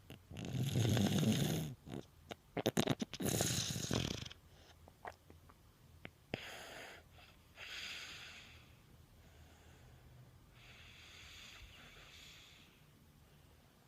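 A sleeper snoring with congested breathing: two loud snores in the first four seconds, the second one rattling, then quieter wheezy breaths every couple of seconds. The noisy breathing comes from nasal congestion.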